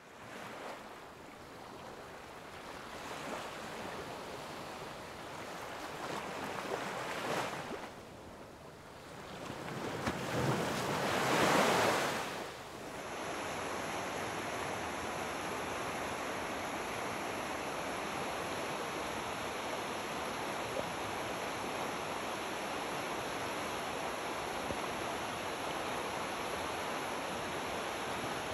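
Rushing noise that swells and fades, loudest about two-fifths of the way in, then after a sudden change just under halfway, the steady, even rush of shallow river rapids running over rocks.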